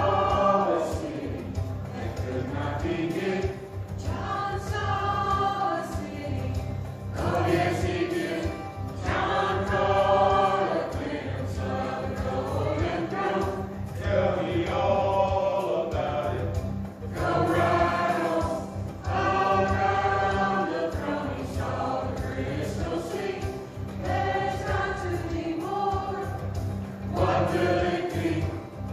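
Mixed church choir of men and women singing a hymn in slow, held phrases, with brief breaths between phrases.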